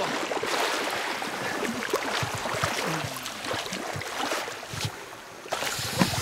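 Shallow surf water splashing and sloshing as a landed lemon shark is hauled by the tail through the wash onto the sand.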